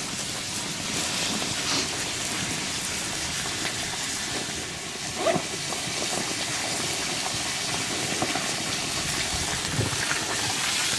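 Small stick fire of hardwood and pine crackling and hissing steadily, with a few sharper pops, the clearest about five seconds in.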